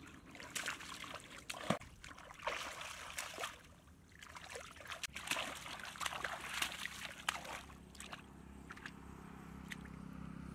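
Hands sloshing and splashing in shallow muddy water, groping through the mud for fish, in irregular bursts with small sharp clicks, easing off near the end.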